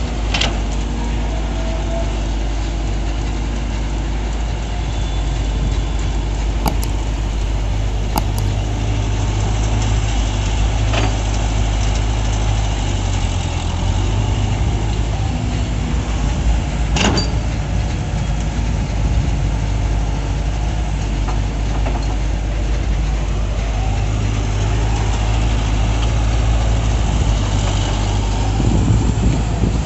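Diesel engine of a Caterpillar tracked excavator running steadily as it digs and loads sand, easing off briefly about halfway through. A few sharp clanks stand out above the engine.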